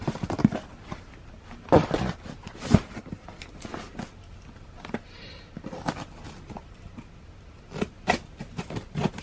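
Shipping package being opened by hand: irregular scraping, crackling and tearing of the packaging in short bursts, with quieter handling between.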